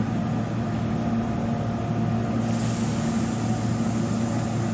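Standing Meitetsu 3150-series electric train humming steadily, with a sudden burst of air hiss about halfway through that fades away.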